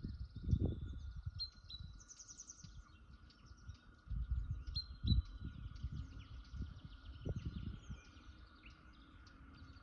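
Small birds chirping and twittering in quick, repeated calls, over gusts of wind buffeting the microphone and a faint steady high hum.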